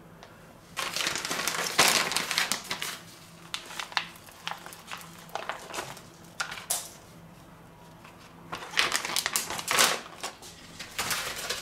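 Clear plastic vacuum-sealer bags crinkling and rustling as a halved rack of pork ribs is handled and slid into one. The crackling comes in irregular spells and goes quieter for a few seconds in the middle.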